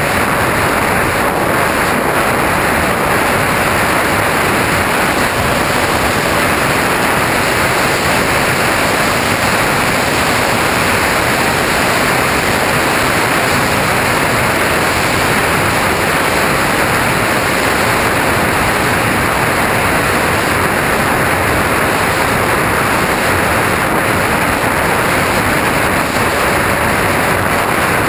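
Steady rushing wind and propeller noise on a camera riding a radio-controlled plane in flight. A faint steady motor hum runs underneath.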